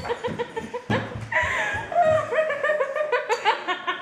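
Human laughter in quick, repeated ha-ha pulses, with more than one voice overlapping at times.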